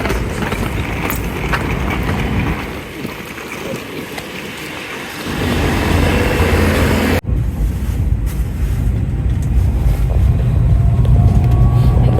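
A steady rushing noise with wind on the microphone, cut off abruptly about seven seconds in. A passenger train's low running rumble follows, with a faint whine rising in pitch near the end.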